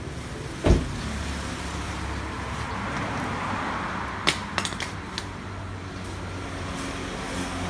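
Steady low hum of workshop background noise, with one sharp thump about a second in and a quick run of light clicks and knocks a few seconds later from hands working at a car's underside.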